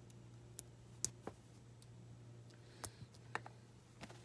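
Faint, scattered clicks of small plastic LEGO pieces being handled and pressed together, about six sharp clicks at uneven intervals, over a steady low hum.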